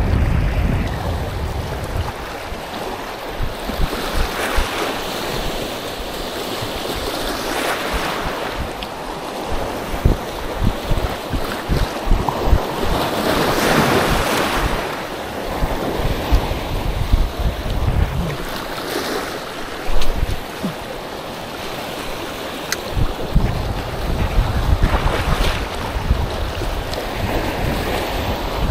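Surf breaking on a beach, swelling up every few seconds, the biggest wave around the middle, with wind buffeting the microphone in low gusts.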